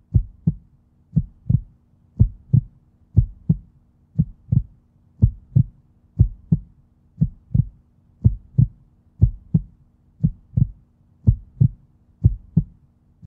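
Heartbeat sound effect: a steady run of paired low thumps, lub-dub, about one beat a second, used as a suspense cue. It cuts off just before the end.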